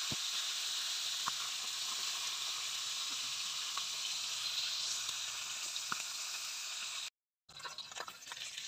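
Marinated milkfish (bangus) pieces frying in hot oil in a pan: a steady sizzle with an occasional sharp pop. About seven seconds in it cuts out briefly, then returns as a quieter, crackling fry with scattered pops.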